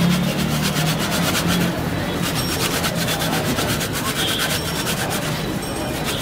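Food being rubbed quickly up and down a metal box grater: a rapid, even run of rasping strokes.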